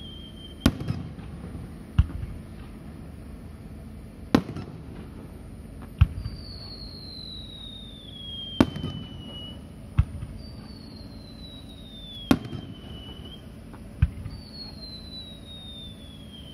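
Aerial fireworks bursting, a sharp bang about every two seconds, with long falling whistles from whistling shells in between.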